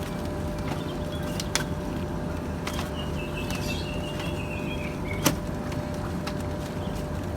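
Steady low rumble with a constant hum, broken by two sharp knocks, the louder one about five seconds in. Between them, about three seconds in, comes a quick run of short high chirps.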